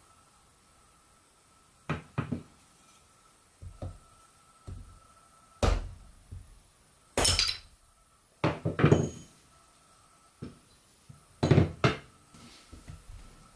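Hand axe chopping into a small chestnut spoon blank stood on a log chopping block, rough-shaping it by removing waste wood: a dozen or so sharp wooden knocks at irregular intervals, some in quick pairs, loudest about two-thirds of the way through.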